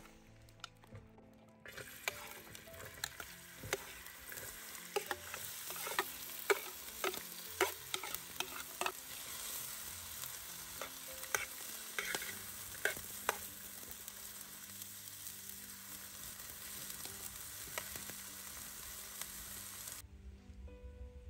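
Sliced onions frying in hot oil in a pan over a wood fire, sizzling with a steady hiss and many sharp crackling pops, with the clicks of a spatula stirring them. The sizzle starts suddenly about two seconds in, as the onions meet the hot oil, and cuts off near the end.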